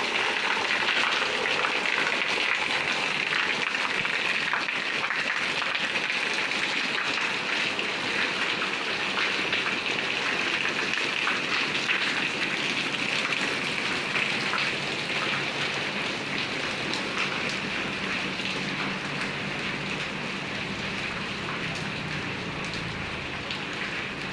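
Steady rain falling on an alley's pavement and roofs, a dense hiss of countless small drop ticks that eases slightly in the second half. A faint low hum joins in near the end.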